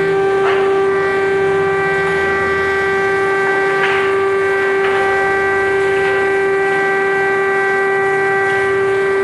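Air-raid siren holding one steady, unwavering tone, with a few faint brief noises in the background.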